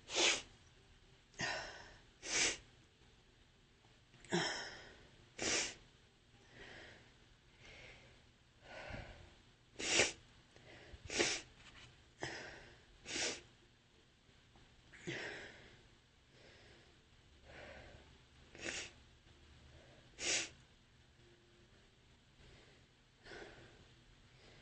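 A woman sneezing over and over: more than a dozen short, sharp sneezes a second or two apart, some louder than others, with breaths in between. The sneezes come further apart near the end.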